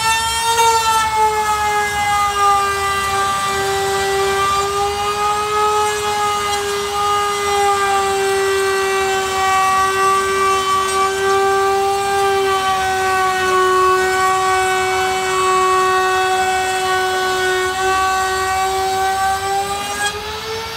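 A handheld trim router's motor whines steadily as it cuts along a straightedge into a metal panel. Its pitch sags a little under the cutting load and rises again near the end as the load eases.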